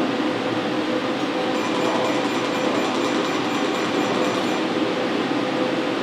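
Fotona Er:YAG laser unit running with a steady hum. From about a second and a half in until about four and a half seconds, a faint rapid even ticking and a thin high tone come in on top, as the laser fires pulses during a NightLase treatment.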